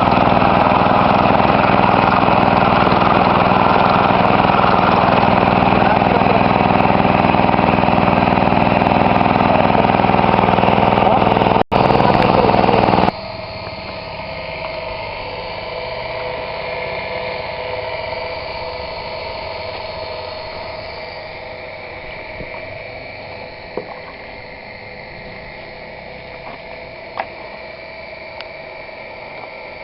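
Small engine of a simple portable well-drilling machine running steadily; about thirteen seconds in it cuts off abruptly, leaving a much quieter steady hum.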